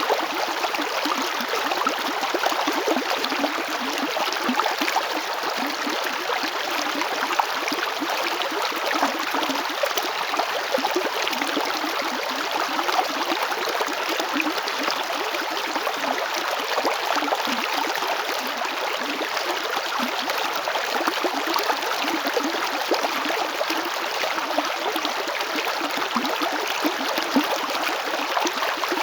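River water flowing over stones, a steady rush with constant small splashing and gurgling.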